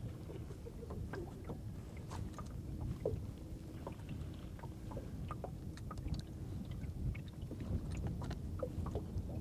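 Small waves lapping against the hull of a small open boat, with a low rumble of wind and a scattering of light clicks and knocks.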